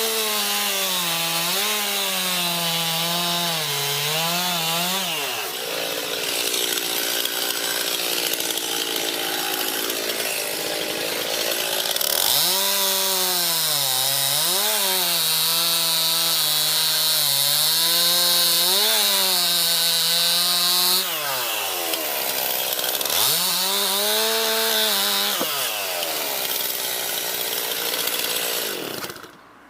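Two-stroke petrol chainsaw at full throttle cutting through wood, its engine pitch dipping and recovering again and again as the chain bites under load. The engine cuts off near the end.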